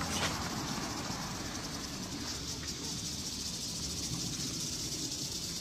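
Quiet evening outdoor ambience: a steady high chirring of insects over a low rumble.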